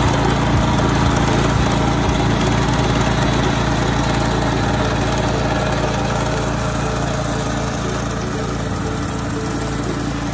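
BCS 722 walk-behind tractor with a rear rotary tiller, its small single-cylinder gasoline engine running steadily as the tines work loose soil. The sound eases a little in the second half.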